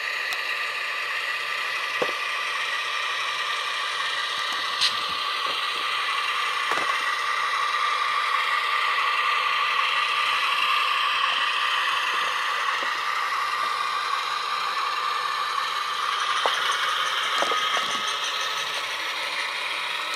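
Tsunami sound decoder in a model U50 locomotive playing its twin GE diesel engines idling, a steady, rattly engine sound coming thin through the model's small dual speaker, with a few light clicks.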